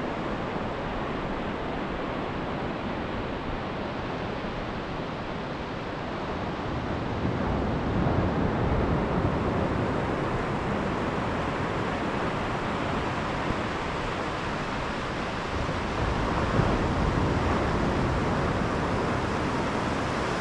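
Surf breaking on a sandy beach: a steady rush of waves with wind on the microphone, the wash swelling louder about seven seconds in and again near the end.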